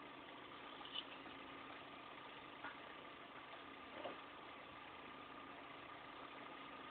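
Near silence: a faint steady hiss and hum, with three faint short ticks or pops spread through it.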